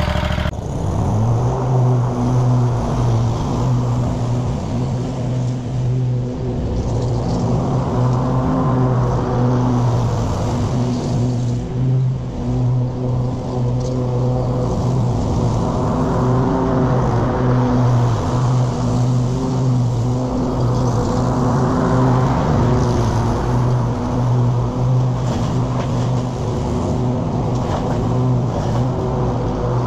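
Scag Tiger Cat zero-turn mower's 27 hp Kohler Command V-twin engine running steadily while mowing, its sound swelling and fading every several seconds. The engine sounds healthy after a broken connecting rod was replaced.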